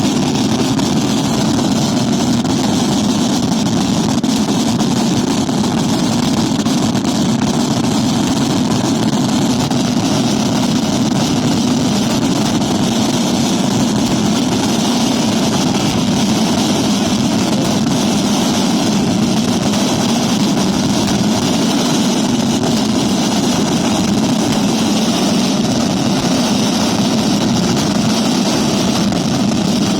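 Fireworks finale barrage (scarica): a dense, unbroken roll of rapid-fire bangs merging into one continuous rumble, holding at the same loudness throughout.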